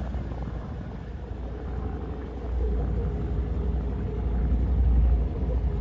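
Pontoon boat's motor running with a steady low rumble, growing louder about two and a half seconds in.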